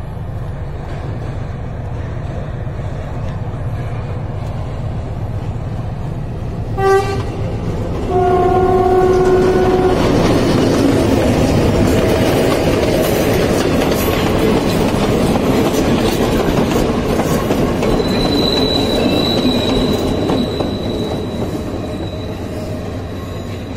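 Diesel locomotive pulling a passenger train, its engine throbbing low as it approaches. It sounds a short horn toot and then a longer horn blast, and goes by close with a loud rumble and clatter of locomotive and carriages. A thin, steady high squeal of wheels on the curve rises over the rumble in the later part.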